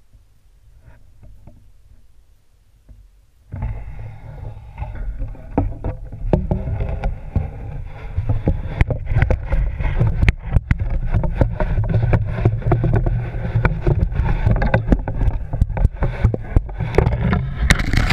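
Underwater camera being hauled up through an ice-fishing hole: water rushing over it and its line and housing knocking and scraping. The noise starts suddenly about three and a half seconds in, a low rumble thick with clicks, and ends in a brief louder burst as the camera clears the water.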